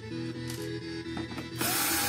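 Cordless screwdriver whirring briefly near the end as it backs out a screw from an LED PAR light's case, with its motor pitch rising as it spins up. Background music plays throughout.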